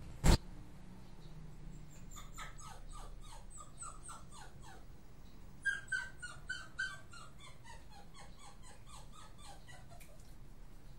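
A single sharp click about a quarter-second in, then a Miniature Pinscher puppy whimpering in a long string of short high-pitched whines, about three a second, slowly drifting lower in pitch, louder for a moment around the middle.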